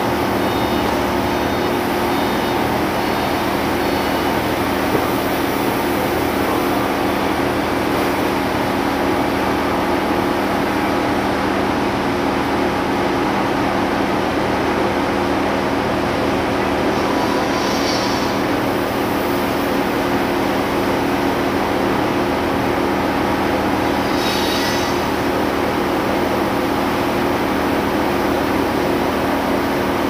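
Steady drone of running machinery at an even level, with two brief high metallic squeals or clinks in the middle.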